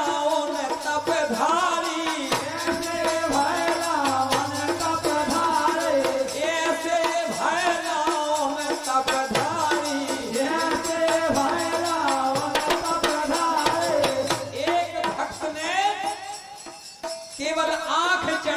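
A man singing a Bundeli devotional bhajan into a microphone in long, held, wavering notes, over jingling percussion. The singing breaks off briefly near the end, then starts again.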